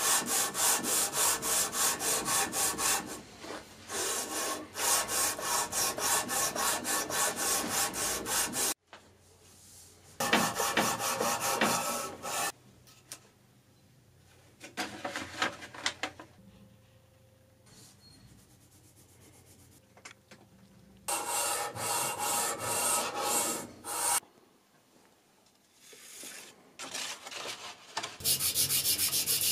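Abrasive paper on a hand-held block sanding down the high spots of a metal surface plate, rubbed back and forth in quick even strokes. The strokes come in several spells broken by quieter pauses.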